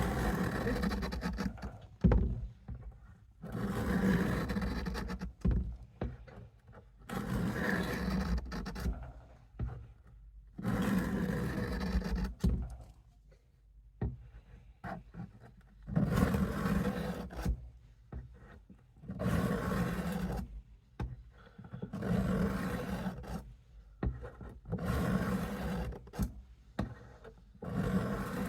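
Case USMC knife blade drawn across the coarse side of a sharpening stone in slow, even strokes, about nine of them, each a rasping scrape lasting a second or so with short pauses between. This is the knife's 25-degree edge bevel being ground.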